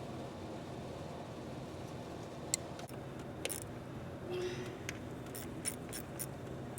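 Scattered metallic clicks and a short rattle of hand tools and engine parts being handled, over a steady low hum.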